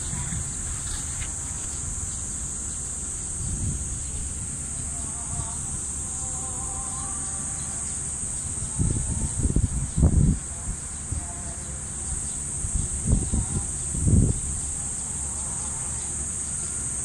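Steady high-pitched insect drone with faint distant voices. Two clusters of low rumbling bursts, about nine and thirteen seconds in, are the loudest sounds.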